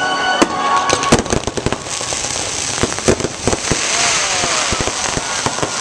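Fireworks going off: many sharp bangs and crackles in quick succession over a steady hiss.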